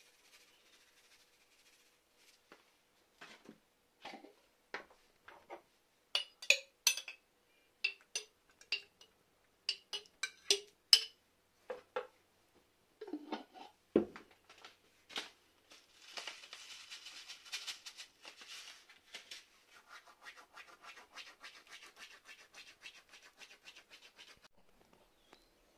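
A metal spoon clicking and tapping against a plastic bowl as sauce is spooned onto chopped salad greens, with one heavier knock about halfway. Then a long, busy rustling and crackling of the leaves as the salad is tossed and mixed.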